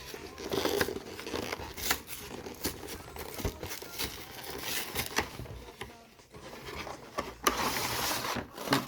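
Plastic wrapping on a Pokémon card collection box being torn and crumpled in irregular crackling rustles with sharp clicks, densest about half a second in and again near the end.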